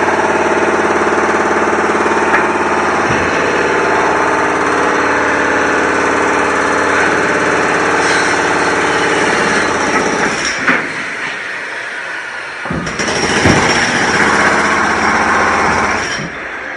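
Construction machinery: an engine running steadily for about ten seconds, then dropping away, followed by a rougher, noisier stretch with a few sharp knocks.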